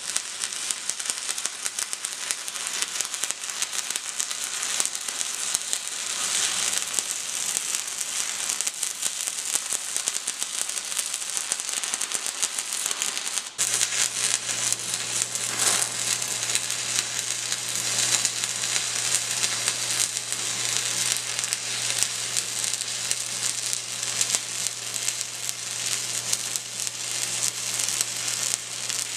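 Stick welding arc crackling and sizzling steadily as the electrode burns. About halfway there is a brief break, after which a low steady hum runs under the crackle.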